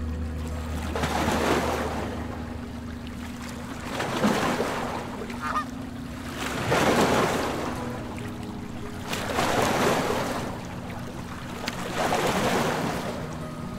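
Water rushing and splashing along the hull of a moving river launch, swelling and easing about every three seconds, over a steady low hum.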